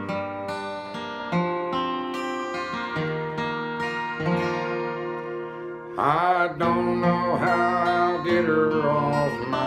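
Steel-string acoustic guitar playing a slow country ballad, picked chords ringing one after another. About six seconds in, a man's singing voice comes in over the guitar.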